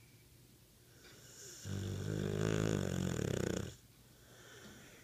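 American Bulldog snoring: one long, loud snore that begins as a breathy rush about a second in, turns into a low buzzing rattle, and cuts off sharply after about three seconds.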